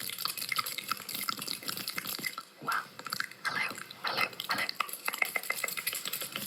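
Stomach gurgling, heard as a dense run of quick liquid pops and bubbly clicks, with a couple of longer gurgles about three and four seconds in.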